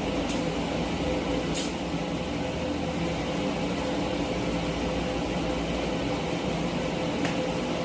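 TIG welding arc burning steadily: an even buzzing hum from the welder and torch, with a few short high-pitched ticks, while a tack weld is laid over a spot ground out for porosity.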